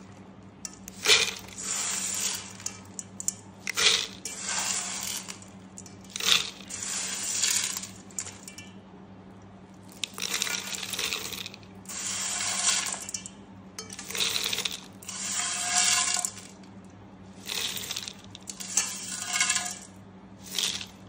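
Kaara boondi, crisp fried gram-flour pearls with peanuts, being poured batch by batch into a clear plastic jar. Each pour is a sharp tap followed by about a second of the hard pieces rattling against the plastic and each other, repeating every two to three seconds.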